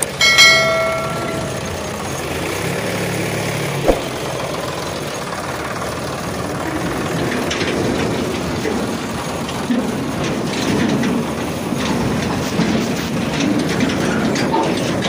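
A short horn toot, then a steady rumbling, rattling vehicle noise with scattered clicks and a single sharp knock about four seconds in.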